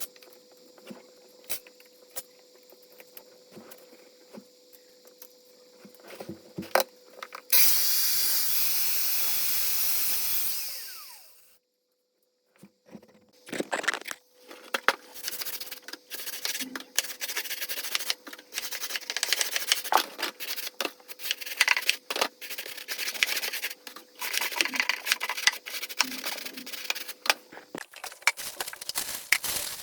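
Building work sounds: a loud machine runs for a few seconds and winds down, then a run of irregular knocks and scrapes, like tools working on masonry.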